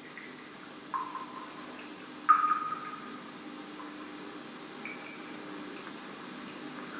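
Water drops falling from cave formations, plinking into pools: several sudden ringing pings a second or so apart, the loudest about two seconds in, over a faint steady hum.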